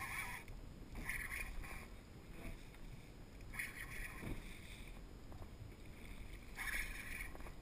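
Spinning reel being cranked with a fish on light tackle, giving short buzzing bursts every few seconds, over water lapping and knocking at the boat's hull.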